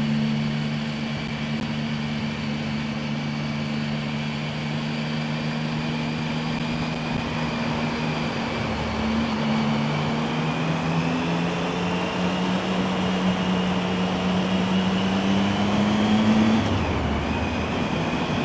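2008 Triumph Speed Triple's three-cylinder engine running under way, over road noise. Its revs climb slowly through the second half, then drop off sharply near the end before picking up again.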